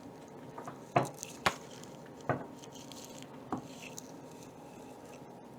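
Oracle cards being handled and set down on a table: four short, sharp taps spread over a few seconds, as a card is picked from the deck.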